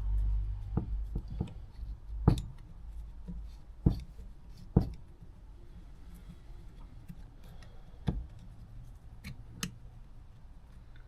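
Clicks and knocks of a carburettor and small tools being handled on a workbench: a few sharp knocks in the first five seconds, then lighter taps and a couple more clicks.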